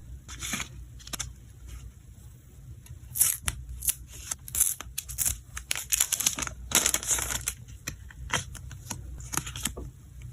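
Packaging being unboxed by hand: irregular tearing, crinkling and clicking as wrapping is torn and the contents handled.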